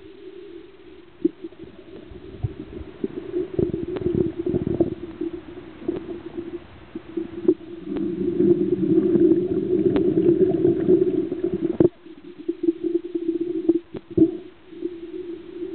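Muffled underwater sound picked up through a diving camera's housing: a steady low hum with rumbling swells, the longest and loudest about eight seconds in, and scattered sharp clicks.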